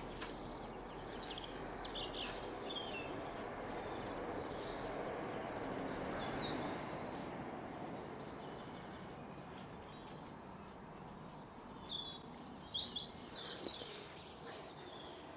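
Small garden birds chirping in short bursts, clearest near the start and again near the end, over steady outdoor background noise, with a few sharp clicks.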